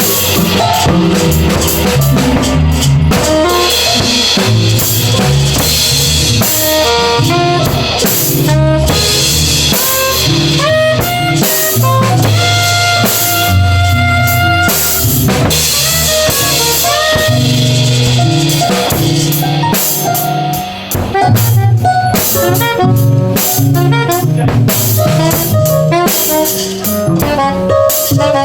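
A live band playing fully improvised music, with a drum kit keeping a busy beat under bass and melodic instruments. It briefly drops back about 20 seconds in, then comes in loud again.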